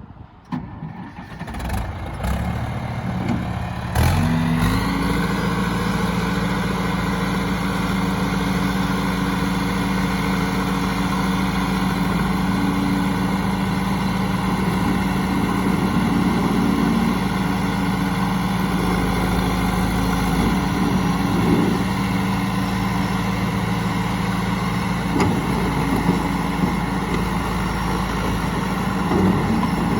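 John Deere 450C's diesel engine turning over, then catching about four seconds in with a quick rise in pitch and settling to run steadily.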